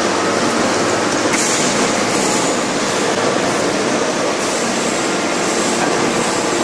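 Steady, loud mechanical din of a 5000-ton hydraulic open die forging press at work, with two sharp clicks, about one and a half and four and a half seconds in.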